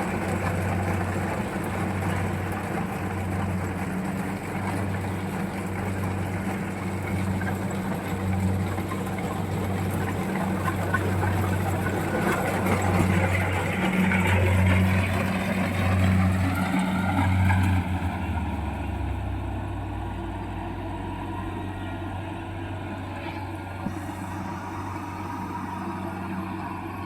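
Kubota 68 tracked mini combine harvester running, its engine and machinery making a steady drone with a low hum that pulses about once a second. About two-thirds of the way through, a whine drops in pitch and the machine settles into a quieter, smoother run.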